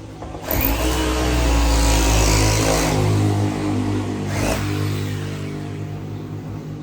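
A motor starts about half a second in, runs loudly with a steady pitch for about three seconds, then eases down.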